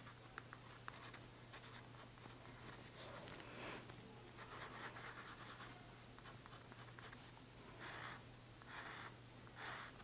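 Glass dip pen scratching faintly across notebook paper in short, quick strokes, writing out an ink swatch label and test loops.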